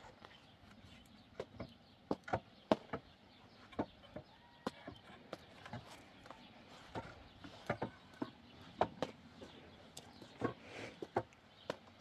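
Irregular hollow knocks of wooden poles and branches being laid and shifted against each other on a log rack, coming in short clusters.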